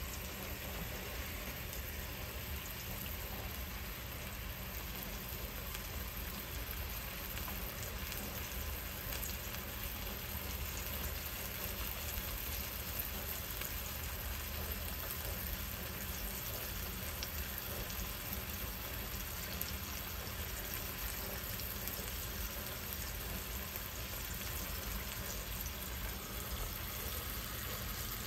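Boneless tilapia fillets frying in butter in a pan: a steady sizzle with a fine crackle.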